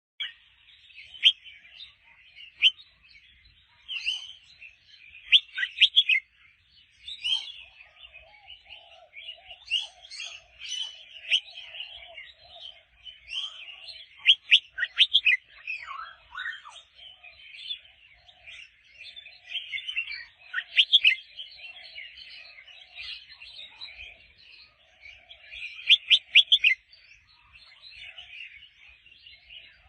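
Red-whiskered bulbul singing in repeated bursts of quick, bright chirping phrases. From about a quarter of the way in, a fainter, lower chattering runs along underneath.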